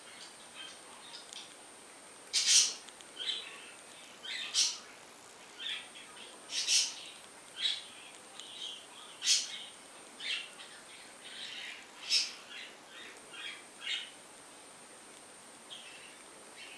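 Budgerigar chick making short, high calls over and over while being spoon-fed hand-rearing formula, the food-begging calls of a nestling. The loudest calls come roughly every two seconds, with softer ones in between, and they thin out near the end.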